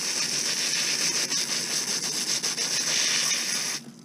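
Garden hose spray nozzle blasting a jet of water into a cleaned blue crab held in the hand, washing out its guts: a steady hiss of spray that cuts off suddenly near the end.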